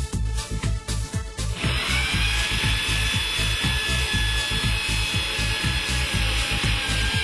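Electric drill starting about one and a half seconds in and running at a steady high whine as it bores through the drawer slider's mounting bracket into the cabinet side panel. Background music with a steady beat plays underneath.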